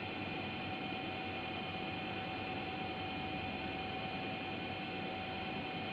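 Steady hiss with a constant electrical hum and a thin steady tone, unchanging throughout: room tone with no distinct events.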